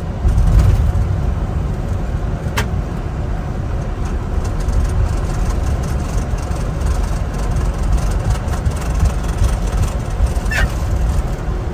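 Boeing 747-400 on its landing rollout, heard from the cockpit: a loud, steady low rumble of the engines and the wheels on the runway, swelling in the first second. Two brief clicks sound, one early and one near the end.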